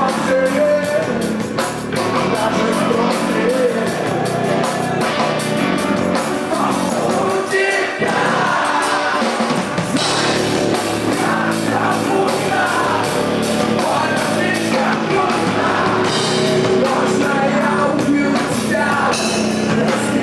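A rock band playing live, with drums and a singing voice over the instruments, at a loud, steady level.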